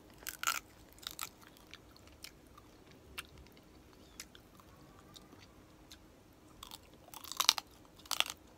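A person biting and chewing crispy pata, deep-fried pork leg, with crisp crunches of the fried skin: a short cluster about half a second in and another about a second in, a few small crunches between, and the loudest run of crunches near the end.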